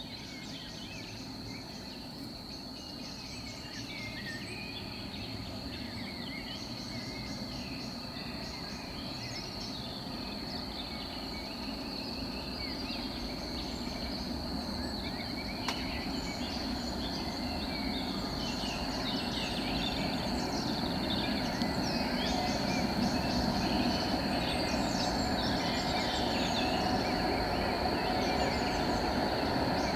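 Evening insects chirring in a steady high trill, with birds chirping, over a low rumble from an approaching train that grows steadily louder as it comes through the tunnel.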